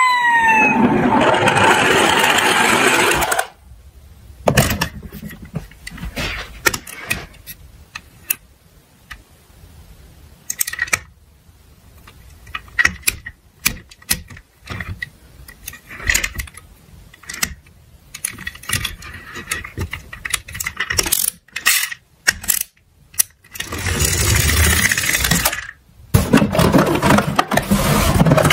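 Small diecast toy cars clattering on a plastic slope track. A loud rolling rattle comes at the start and again near the end, with scattered sharp metallic clicks and knocks between.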